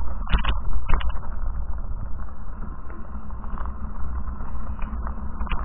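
A fat-tyre bicycle rolling over a gravel track, heard as a steady rumble with wind buffeting the handlebar-mounted microphone. A few sharp knocks come in the first second and again near the end, as the bike goes over bumps.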